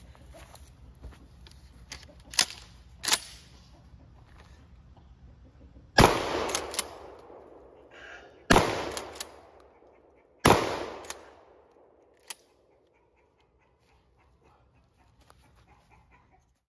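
Three 12-gauge pump-action shotgun blasts firing double-aught buckshot, about two seconds apart, each with a long echoing tail, and lighter clacks of the action being cycled between them. Two sharp clacks come a few seconds before the first shot.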